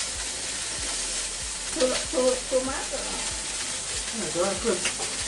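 Sous-vide pork steaks sizzling steadily as they sear in a very hot wok.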